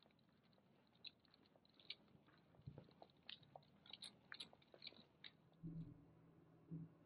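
Faint, scattered crinkling and clicking of a thin plastic shopping bag swinging as it is carried, then a few low dull knocks as an aluminium beer can is handled on a wooden table near the end.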